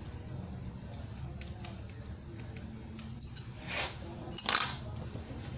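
Two short spritzes from a barber's hand spray bottle, about half a second apart, over a steady low hum.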